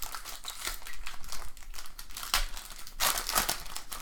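Foil wrapper of a trading-card pack crinkling as it is torn open and handled, with a louder burst of crinkling about three seconds in.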